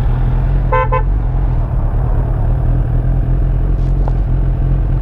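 A vehicle horn gives two short beeps about a second in, over a loud, steady low rumble of a motorcycle riding in traffic, with wind on the helmet camera.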